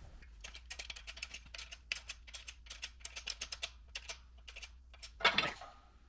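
Quick, irregular light metallic clicks and clinks, several a second, from steel parts and tools being handled while a hydraulic shop press with a bottle jack is set up. A brief, louder scrape comes near the end.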